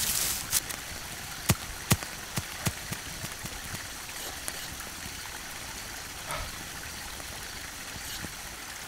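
A steady hiss like running water, with a few sharp snaps or knocks in the first three seconds and fainter ones later.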